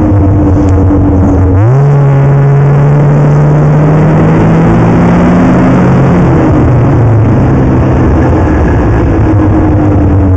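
Snowmobile engine running under the rider. It revs up sharply about a second and a half in as the sled accelerates, holds the higher pitch for a few seconds, then eases back down about six seconds in.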